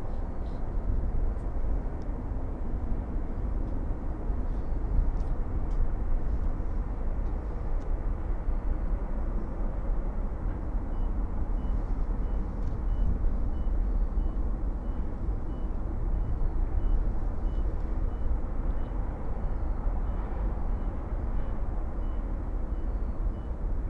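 Distant jet airliner engines running on and over the runway, a steady rumble. About halfway through a faint high beep starts repeating about twice a second.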